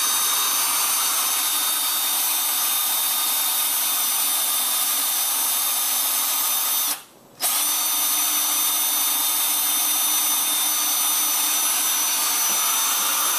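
Cordless drill running with its bit pressed against the side of a tin can, a steady motor whine. It stops for a moment about seven seconds in, then starts again.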